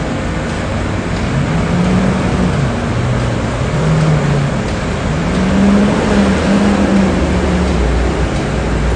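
Busy city street traffic. Passing vehicle engines rise and fall in pitch, and a heavy low rumble builds near the end.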